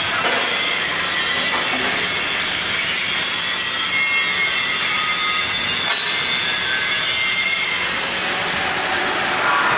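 Hydraulic power unit of a welding positioner running steadily, a hissing mechanical whine, as its hydraulic cylinders tilt the loaded table back to level.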